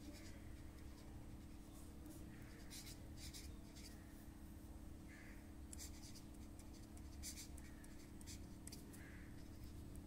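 Faint scratching of a marker pen's tip on paper, in short strokes as words are written and underlined, over a steady low hum.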